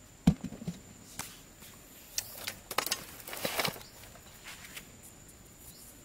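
A soccer ball dropped into a hole in sandy soil lands with a dull thump about a third of a second in, followed by a couple of small bounces. Then scattered taps and rustling and scraping of dirt and handling, busiest around the middle.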